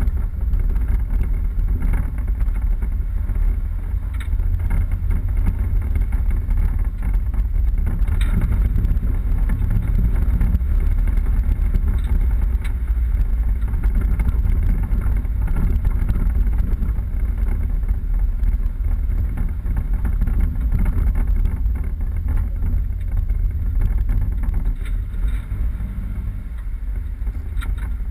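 A 4x4 driving off-road: a steady low rumble of engine and drivetrain with a few light knocks and rattles.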